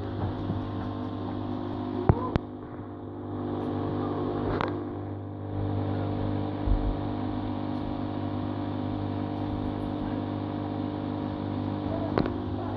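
Small electric water pump giving off a steady electrical buzz with a low hum, picked up close. A few short knocks come as the unit is moved and handled.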